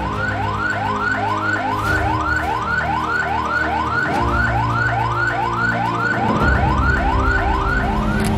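Police car siren in yelp mode, rapid rising wails repeating about two and a half times a second, over background music.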